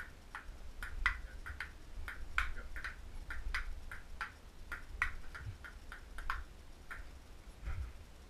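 Table tennis rally: a ping pong ball clicking sharply off the table and the paddles in turn, about three clicks a second without a break.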